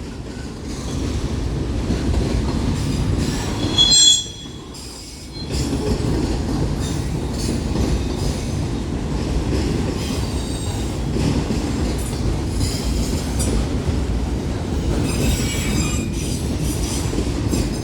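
Freight train cars rolling past on the rails: a steady rumble of wheels with a short, high wheel squeal about four seconds in. A brief lull follows before the rumble picks up again, and a fainter squeal comes near the end.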